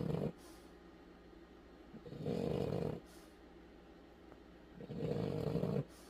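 A French bulldog snoring: loud rasping snores about a second long, coming every two and a half to three seconds, each followed by a short hiss.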